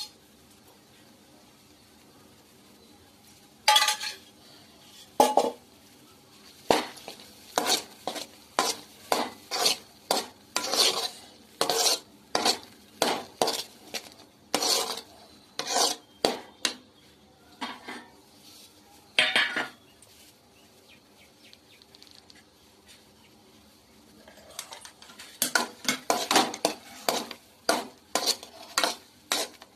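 Steel spatula stirring and scraping thick red-banana halwa around a kadai in short, uneven strokes. The strokes begin a few seconds in, pause for about four seconds past the middle, then come quicker near the end.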